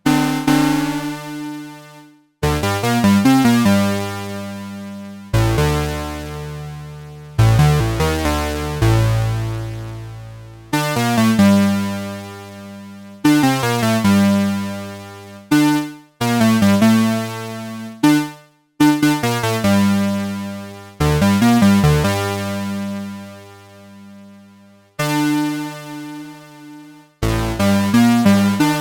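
Behringer 2600 analog synthesizer playing a series of bright, buzzy notes and chords. Each starts sharply and fades over a couple of seconds, with a few quick runs of rapidly changing notes in between.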